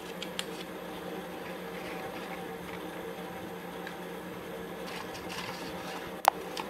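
Faint rustling and light taps of paper cones being handled and set in place by hand, over a steady background hum; one sharp click near the end.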